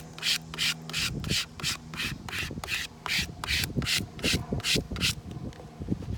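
A plastic card is rubbed hard back and forth over a vinyl decal on a car window, burnishing it onto the glass. The scratchy strokes come about three a second and stop near the end.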